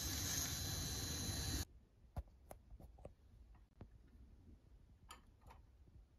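A steady hiss that cuts off suddenly about one and a half seconds in. It is followed by a few faint, sharp clicks of the metal Meccano model being handled.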